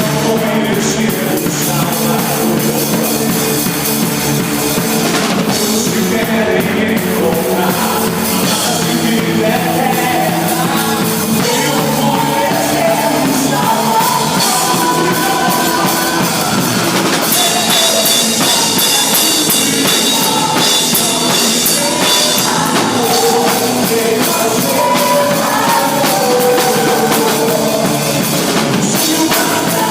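Music with a drum kit, band instruments and a singing voice.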